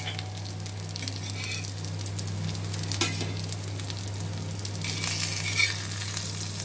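Surmai (kingfish) steaks sizzling in oil on a hot tawa, with a steel spatula scraping the pan as the pieces are lifted off: briefly about three seconds in, and again from about five seconds in. A steady low hum runs underneath.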